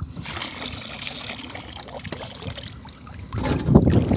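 Water poured out of a green plastic container into shallow paddy water, a steady splashing hiss. It turns to louder, choppier sloshing and splashing for the last second or so as the container is dipped into the water.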